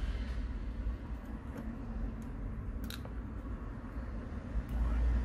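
A few faint, sharp clicks, the clearest about three seconds in, from metal tweezers and a small phone component being handled and set down on a silicone repair mat, over a steady low background rumble.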